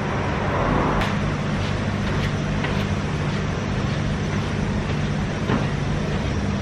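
Steady low mechanical hum over an even rushing noise, running without change, with a few faint ticks.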